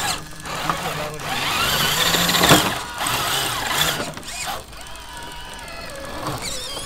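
Electric drive motor of an RC rock crawler whining, rising and falling in pitch as the throttle is opened and let off.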